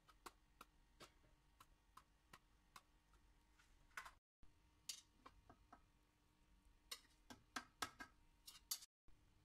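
Near silence: faint room hum with scattered soft clicks and ticks, several coming in quick succession near the end.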